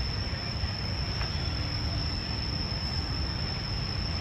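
Steady outdoor city ambience: a low rumble of traffic under a constant high-pitched insect drone.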